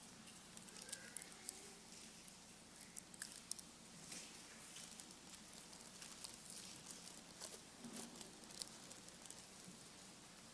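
Near silence, with scattered faint clicks and small rustles from a congregation handling communion trays and cups, over a low steady room hum.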